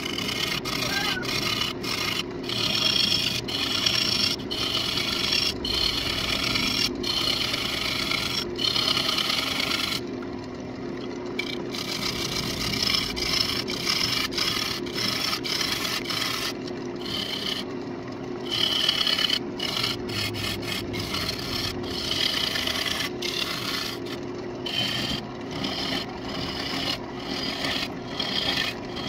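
Turning tool cutting into the inside of a spinning walnut bowl on a wood lathe: a rough scraping hiss that breaks off briefly several times as the tool leaves the wood, over the steady hum of the lathe.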